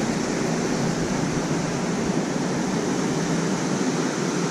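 Steady rush of water pouring through a dam spillway.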